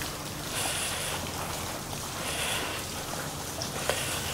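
Steady wash of running water with wind noise on the microphone, and a single light knock near the end.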